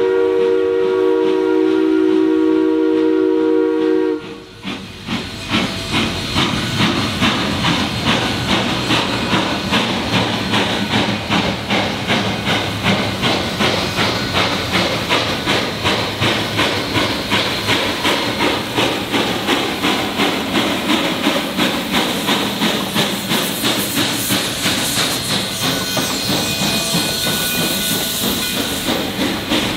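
Durango & Silverton No. 473, a three-foot-gauge K-28 2-8-2 steam locomotive, sounds its steam whistle in one long blast that cuts off about four seconds in. It then works its train forward with steady exhaust chuffs about two a second over hissing steam, and near the end its running gear passes close by with extra hiss and a faint squeal.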